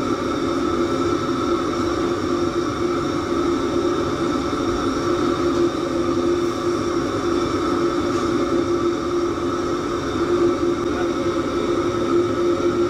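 Steady drone of kitchen machinery, a constant hum over an even whooshing roar, unchanging throughout.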